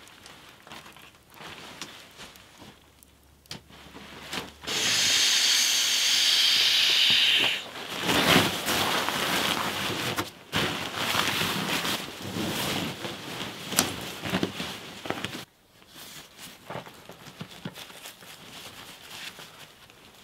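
A steady rushing hiss of air through an inflatable sleeping mat's valve for about three seconds, followed by loud crinkling and rustling of nylon bivvy bag, tent and mat being handled. It eases off to fainter rustles and scrapes on the dirt floor near the end.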